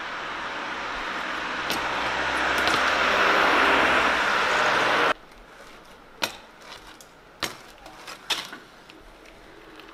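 A rushing rolling noise grows louder for about five seconds and then cuts off suddenly. After it come a few sharp clacks and knocks from a BMX bike's tyres and frame on the pavement.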